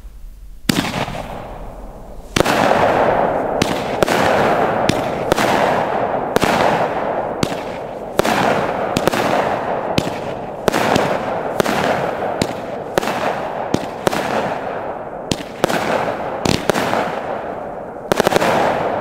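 Mad Ox 'Monkey Wrench' 200-gram firework cake firing its run of shots: sharp cracks one after another, about one every half second to a second, starting about a second in, each with a rumbling echo trailing off between them.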